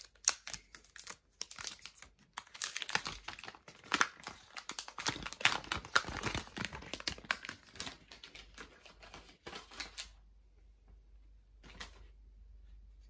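Plastic protective film being peeled off the back of a new smartphone, crackling and crinkling in dense little clicks for about ten seconds, with one short crackle again near the end.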